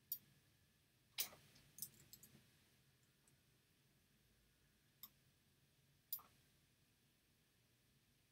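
Computer mouse clicking: a quick run of sharp clicks in the first couple of seconds, then two single clicks later, over faint room tone.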